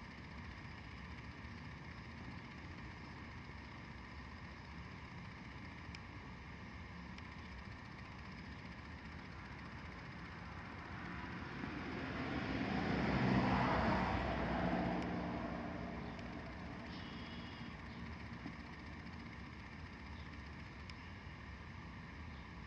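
A motor vehicle passes by over a steady background hum, growing louder and then fading away over several seconds about halfway through.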